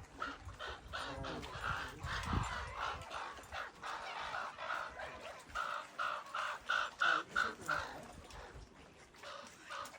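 Crow cawing over and over in a long run of short calls, loudest about six to eight seconds in and tailing off near the end.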